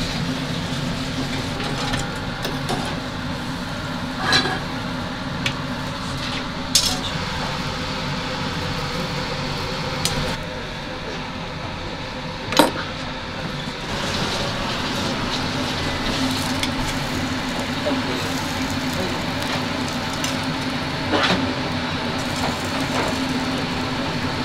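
Commercial kitchen cooking sounds: vegetables sizzling as they deep-fry in oil, then a chef's knife slicing steak on a cutting board, with a sharp knock of the blade on the board about halfway and scattered clinks of utensils, over a steady hum.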